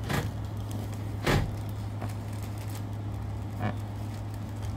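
Yellow slime being squeezed and stretched by hand, giving a few short wet pops, the loudest about a second in, over a steady low hum.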